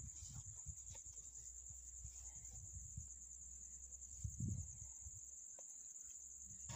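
Faint background: a steady high-pitched trill, with a low rumble and a soft thump about four and a half seconds in.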